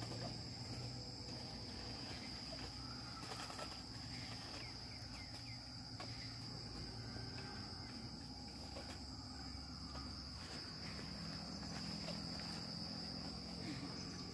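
Insects trilling steadily at a high, even pitch, with a low hum beneath and a few faint clicks.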